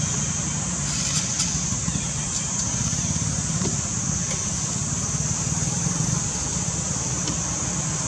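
Steady outdoor background: a constant low rumble like distant traffic under a continuous high-pitched drone, with a few faint light clicks.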